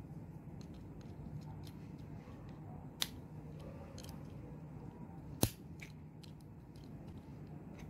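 Small clicks and ticks of a magnetic contactor being taken apart by hand: plastic housing and small metal contact parts knocking together. Two sharp clicks stand out, one about three seconds in and a louder one about five and a half seconds in.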